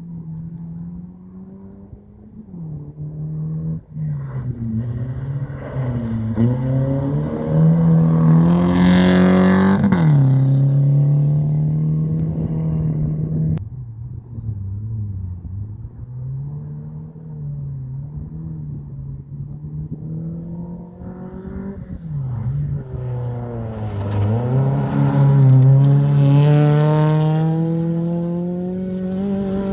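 Rally cars at full throttle on a gravel stage, engines revving hard and changing gear. The first comes closer and passes about ten seconds in, its pitch dropping as it goes away, then the sound cuts off abruptly. A second car builds up and passes loudly a few seconds before the end.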